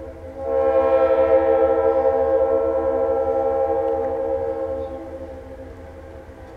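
Leslie Supertyfon RS3L air horn on a GE B39-8E diesel locomotive sounding one long chord blast, from about half a second in to about five seconds, then fading away.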